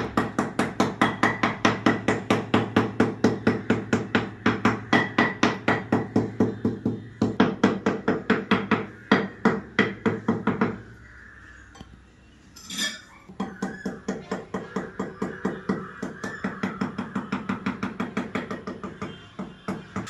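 Rapid knocking of a handle end pounded down on a floor tile to bed it into the mortar, about four blows a second. The knocks stop about eleven seconds in, then resume a couple of seconds later, quieter and a little faster.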